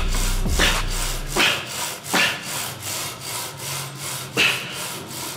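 Rhythmic rasping strokes, one every second or so, during a Smith machine shoulder-press set. Background music with a steady bass stops about a second and a half in.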